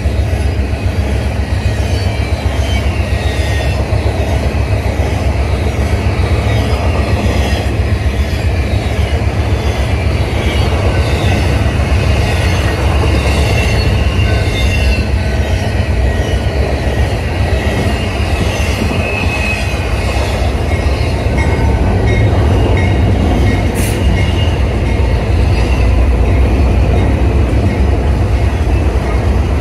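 Double-stack container cars of a freight train rolling past: a steady heavy rumble with the steel wheels squealing on the rails. Near the end it gets a little louder as diesel locomotives of a second train come by on the nearer track.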